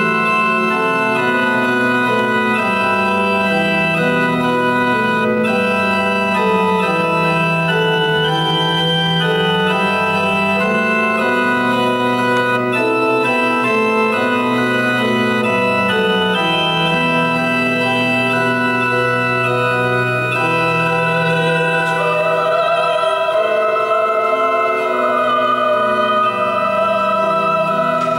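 Yamaha digital keyboard playing slow, sustained organ-style chords over a slowly moving bass line. About three-quarters of the way through, a woman's voice comes in, singing a held melody with wide vibrato.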